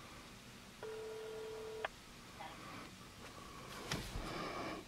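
A phone's outgoing-call ringing tone playing through the smartphone's loudspeaker: one steady tone about a second long, then a sharp click about four seconds in.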